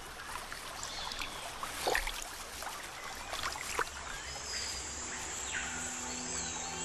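Water splashing and lapping as a jaguar swims through a river, with birds chirping in the background. About five seconds in, soft music with held low notes fades in.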